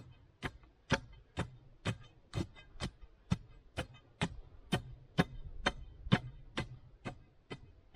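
Sharp, evenly spaced clicks or ticks, about two a second, over a faint low hum.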